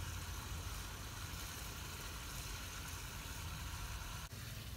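Duck eggs cooking in a wok over a wood fire, sizzling with a steady hiss, over a steady low rumble.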